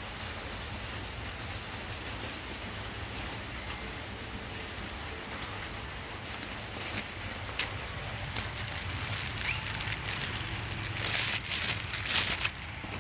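A steady rain-like hiss with scattered small clicks. About eleven seconds in comes a loud burst of crackling, a plastic food bag being handled over the dog's bowl.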